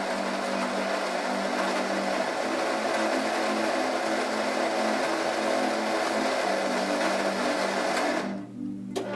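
Quick Mill Monza Deluxe super-automatic espresso machine running steadily for about eight seconds, then stopping abruptly, over background music.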